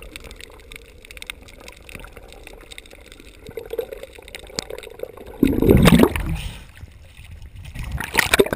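Water sounds picked up by a camera underwater: a bed of fine crackling, then a loud gurgling rush of water about five and a half seconds in, and a shorter one near the end.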